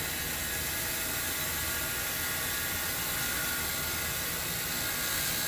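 Bench grinder fitted with a wire wheel, a bolt held against the spinning wire brush: a steady hiss of the bristles scrubbing the metal over the motor's hum.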